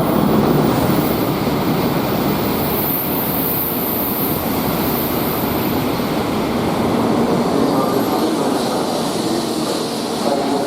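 N700A Shinkansen train pulling into the station platform: a steady, loud rush of wheels and air with a high hiss, and a faint whine of steady tones coming in near the end.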